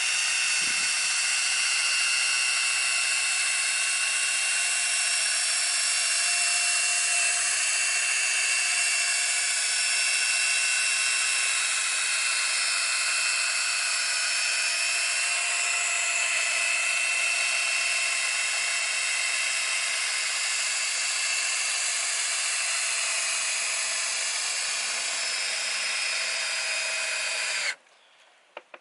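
Cordless drill running steadily, spinning a 3-inch polishing pad loaded with rubbing compound against a plastic taillight lens. Its whine holds constant and stops abruptly about a second before the end.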